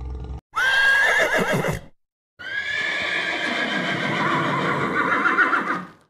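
Horse whinnying twice: a short whinny about half a second in, then after a brief pause a longer whinny that wavers in pitch near its end.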